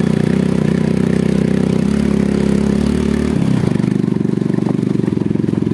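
Motorcycle engine running while being ridden, a steady pulsing note that changes in character about three and a half seconds in.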